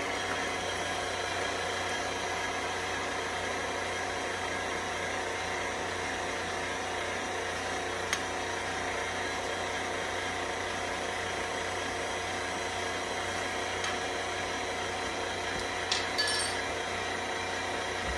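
KitchenAid Ultra Power stand mixer running steadily, its flat beater mixing sticky bread dough in a steel bowl, with a constant motor whine. There is a sharp click about halfway through, and a few brief clinks near the end.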